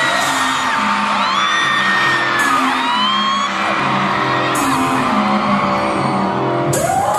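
Loud live K-pop concert music over an arena sound system, with a large crowd of fans screaming and whooping over it.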